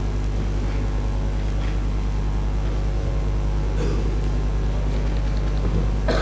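Steady low hum and rumble, with a few faint, brief sounds over it and a short rustle near the end.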